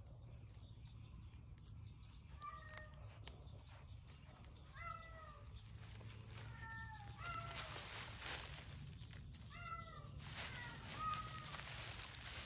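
Caracal–serval hybrid cat giving short meows, about seven spread out, each dipping slightly in pitch. Leaves and grass rustle in the second half.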